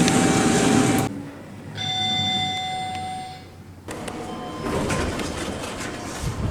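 Elevator sounds from separate clips, each cut off abruptly: first a steady beep tone over car noise, then an elevator arrival chime that rings for about two seconds and fades, then elevator car hum with faint beeps.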